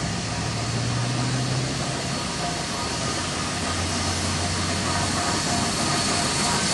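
Two Queensland Railways BB18¼ class steam locomotives double-heading a train as it approaches: a steady running noise that grows slightly louder toward the end.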